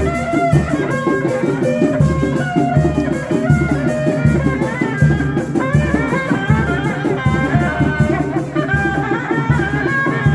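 Sundanese reak procession music: drums beating a steady pulse, with rattling percussion and a wavering, gliding melody line above.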